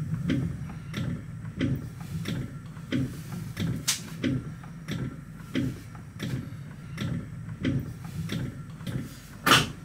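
Regular ticking, about three ticks every two seconds, over a steady low hum inside the cab of a standing TRAXX AC3 electric locomotive, with one louder, sharper click near the end.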